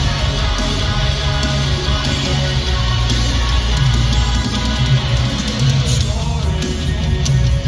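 Live pop-punk rock band playing loudly through the arena PA, with electric guitars, heavy bass and drums and singing.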